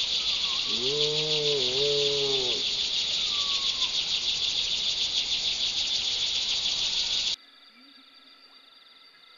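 A loud, steady insect chorus with a fast pulsing buzz, and a low, drawn-out animal call in two parts about a second in. About seven seconds in it cuts off abruptly to a much quieter background with faint, steady high insect tones.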